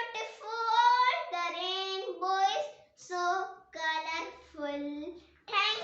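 A young child singing without accompaniment, in short phrases of held notes with brief breaks between them.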